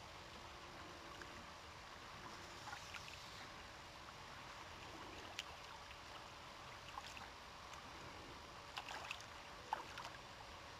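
Faint steady water and air hiss beside a creek, broken by a few short splashes and clicks as a hooked brown trout is played in to the landing net. The loudest splashes come in a brief cluster near the end.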